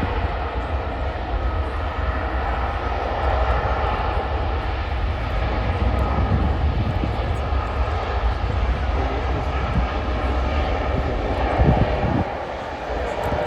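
Airbus A380 jet engines at takeoff power: a steady loud jet noise with a deep rumble and steady whining fan tones, easing off slightly near the end.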